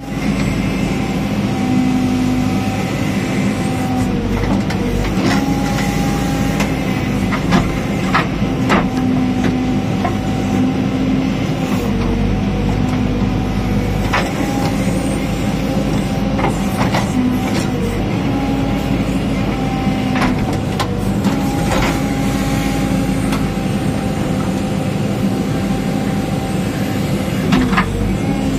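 JCB 3DX backhoe loader heard from the operator's seat: its diesel engine runs steadily under hydraulic load, the note sagging briefly several times as the backhoe arm is worked. Sharp clanks and knocks come at irregular moments as the bucket digs into rocky soil.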